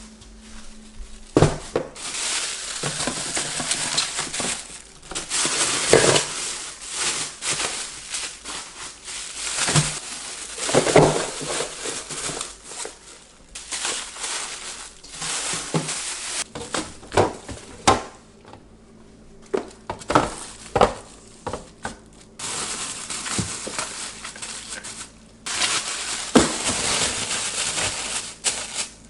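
Plastic bags and food packaging rustling and crinkling in hand, in irregular bursts, with scattered sharp clicks and knocks of containers being handled.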